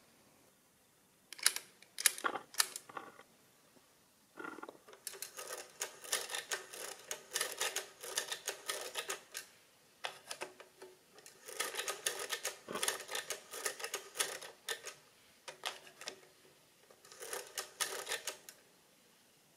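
Scotsman SR1 mechanical calculator, a rebadged Monroe Model L, being operated by hand: a few separate clicks, then several runs of rapid clattering clicks from its mechanism, each a few seconds long with short pauses between.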